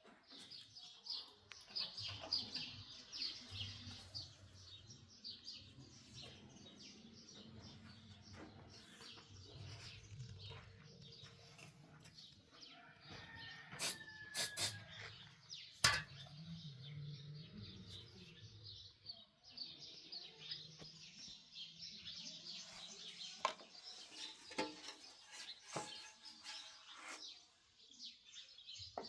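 Many small birds chirping in quick, overlapping high-pitched calls, thinning out through the middle and swelling again in the last third, with a few sharp knocks around the middle.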